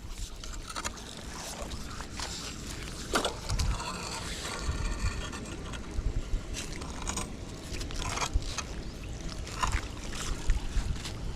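Irregular scraping and splashing in shallow floodwater as leaves and debris are cleared from a blocked storm drain, with a low rumble underneath.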